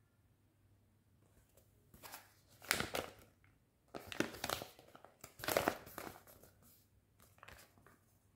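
Paper rustling and crinkling in a string of irregular handling noises as a folded user manual is opened and its pages turned, loudest about three times in the middle.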